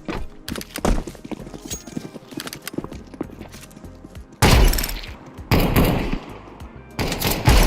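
Video-game automatic gunfire: loud bursts of rifle fire starting about four and a half seconds in, again about a second later, and near the end, after a stretch of lighter scattered clicks and taps.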